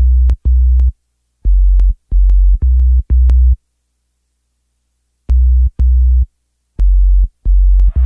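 Electronic music: short, very deep synth bass notes in groups of two to four, separated by silent gaps, with a long pause about halfway through.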